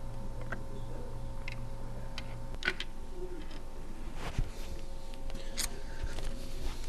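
A few small, sharp metallic clicks at irregular intervals as snap pins and small parts are worked off a sewing machine bracket, over a steady low hum.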